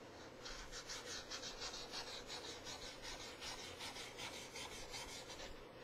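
Red felt-tip marker rubbed back and forth on a photo print in rapid short strokes, making a scratchy rasping sound that starts about half a second in. The marker is running out of ink and barely leaves a line.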